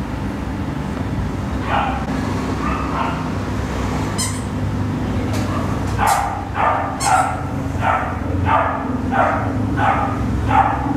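A dog barking: a few single barks early on, then a steady run of short barks, just under two a second, from about six seconds in. A steady low hum runs underneath.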